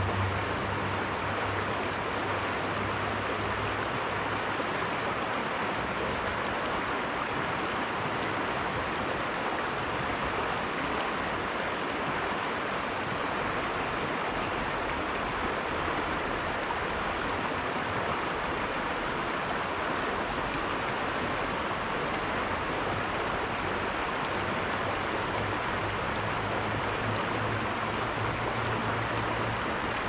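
River water running over rocks, a steady even rushing. A low hum sits under it near the start and again near the end.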